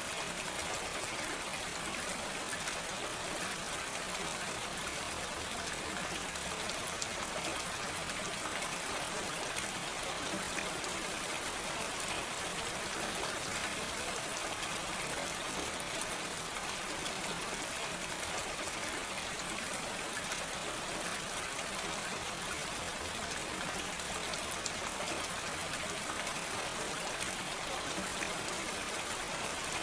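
Steady gentle rain without thunder, an even hiss of falling rain with a fine patter of drops.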